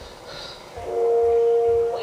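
Film trailer soundtrack heard from a TV's speaker: about a second in, a loud, sustained chord of several steady tones swells in and holds.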